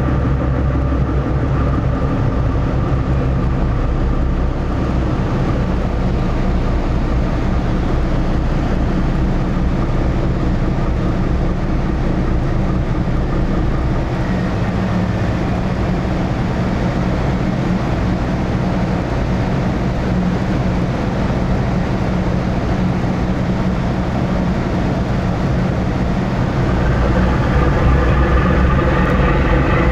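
Steady low drone of a car ferry's engines, heard from the open deck while the ship is under way; it grows a little louder near the end.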